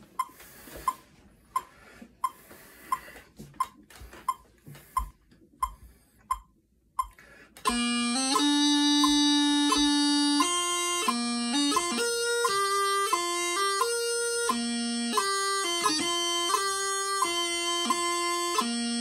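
A metronome ticks steadily, about three ticks every two seconds. After about seven and a half seconds a bagpipe practice chanter comes in, playing a pipe march melody in clear separate notes over the continuing ticks.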